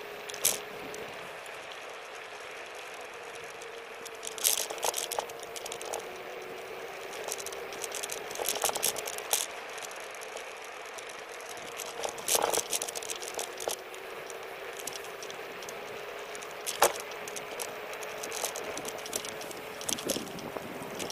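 Xplorer Ambassador electric scooter riding on pavement: a steady tyre hiss and a faint motor whine that wavers slightly with speed, with sharp rattles from the scooter jolting over bumps several times, the loudest about half a second in and near 17 seconds.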